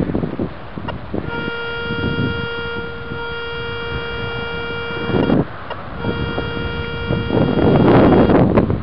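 Garrett Ace 250 metal detector sounding a long steady buzzy beep for about four seconds, then a second, shorter beep after a brief break: the coil is held over a buried metal target. Near the end a loud rustling noise takes over.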